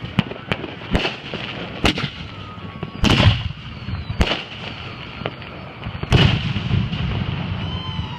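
Fireworks going off: about seven sharp bangs at uneven spacing, with the two loudest about three and six seconds in, each trailing a low rumble.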